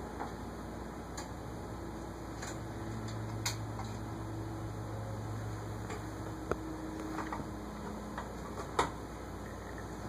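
Ceiling fan motor turning slowly on a solid-state variable speed control: a faint low hum that swells about three seconds in and fades again around seven seconds, with a few scattered light ticks.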